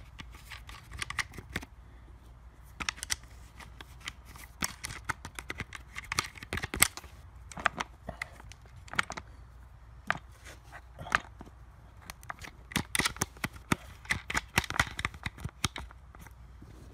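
Irregular clicks, taps and short rattles of hands handling a Poulan chainsaw's plastic housing, bar mount and nuts close to the microphone, coming in clusters with short gaps.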